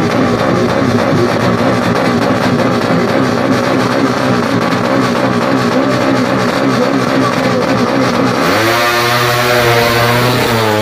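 Four-stroke underbone (bebek) drag bike engine revving hard and unevenly at the start line. About eight seconds in it launches, and the revs climb steadily as it pulls away down the strip.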